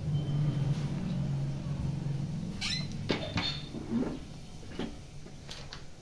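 Hand screen printing: the wooden screen frame clacks down and lifts, and a rubber squeegee scrapes across the ink-loaded mesh, giving several sharp knocks in the second half. A steady low hum runs underneath in the first couple of seconds.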